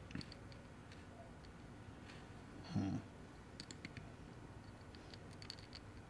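Faint, scattered small clicks and ticks of small metal counter parts and gears being handled and fitted together. There is a brief, louder low sound about three seconds in.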